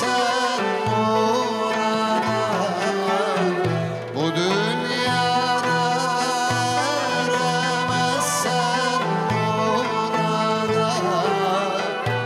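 Turkish classical (sanat) music from a live ensemble of ouds, violin and frame drums, with a male singer's voice, over a steady low drum-and-bass pulse.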